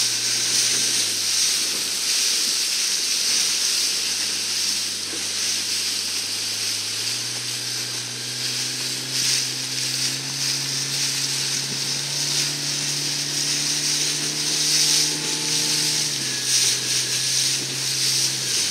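Steady rushing hiss of wind on the microphone and water spray from boats moving fast. Under it runs the low drone of a motorboat engine, which rises in pitch about six seconds in and drops back about sixteen seconds in.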